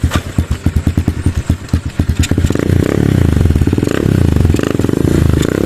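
Kawasaki Wind 125's single-cylinder engine running in distinct separate beats, about eight a second. About two and a half seconds in it is revved up and held at a faster, steadier run that swells a few times.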